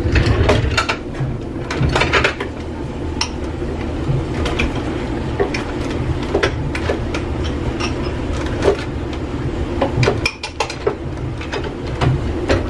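Glass cups and dishes clinking and knocking as they are handled and set down, a string of separate clinks through the whole stretch, over a steady low hum.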